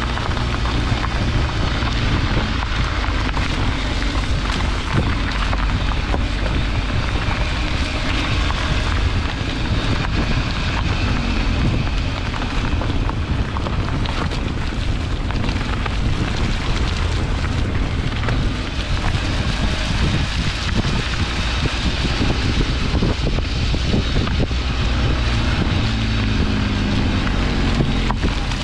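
Car tyres rolling over a gravel road, picked up by a camera mounted low on the car's side by the front wheel: a steady crackling rumble, with wind buffeting the microphone.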